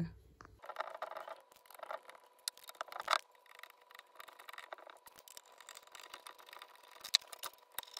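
Faint, irregular small metallic clicks and taps from a screwdriver bit on a socket extension backing out the screws that hold the automatic choke's retaining ring on a Toyota 2E carburettor. A couple of the taps are louder, about three seconds in and near the end.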